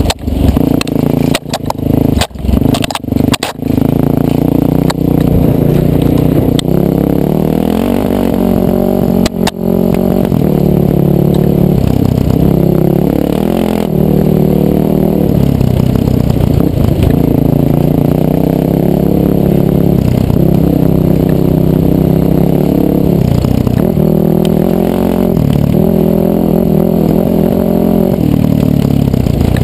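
Yamaha dirt bike engine revving up and down with the throttle, heard from a helmet-mounted camera. The sound cuts out briefly several times in the first few seconds and once more near the middle.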